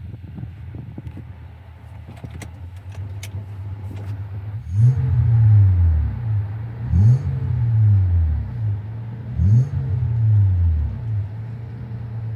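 A 2000 Honda Accord V6 engine idling, then revved three times, each rev climbing quickly and dropping back to idle. The owner is chasing a whirring noise on acceleration, with a loss of power above about 3,500 rpm and no check-engine light.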